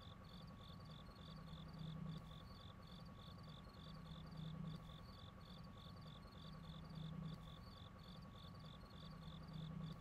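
Faint, even, high-pitched chirping, about four chirps a second, insect-like, with a soft low hum that swells about every two and a half seconds.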